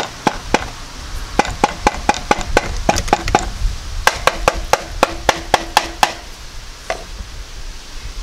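The finned metal case of a failed CDI ignition box rapped over and over against a wooden workbench to knock the packed sand out of it: a run of sharp knocks, several a second, with a short pause midway, stopping about six seconds in.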